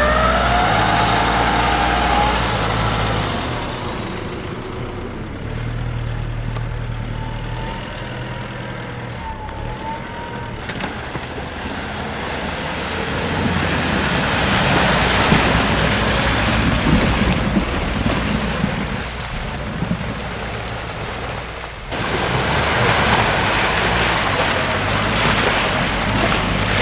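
Off-road pickup engine running steadily while driving, with rushing noise of the vehicle moving over rough ground that swells toward the middle and breaks off suddenly about three-quarters of the way through.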